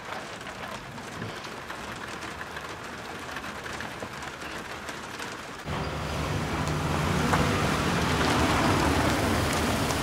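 Rain pattering on a car's roof and sunroof, heard from inside the cabin. About halfway through it cuts to a louder, steady rumble of a car's engine and tyres as a black Mercedes-Benz saloon drives up.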